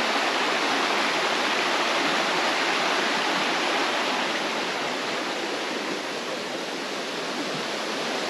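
Creek water flowing, a steady rushing sound.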